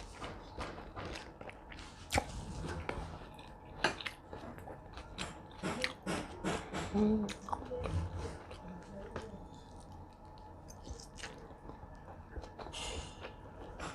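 Close-up chewing and mouth sounds of a person eating: irregular wet smacks and clicks, with a few brief vocal murmurs midway.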